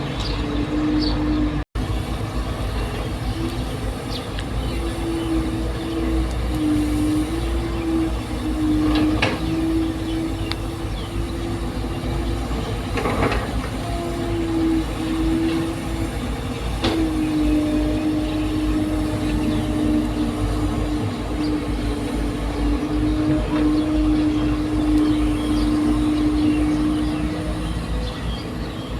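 Steady mechanical hum with one strong tone that steps up and down slightly in pitch, dropping briefly a little after halfway, with a short cut-out near the start.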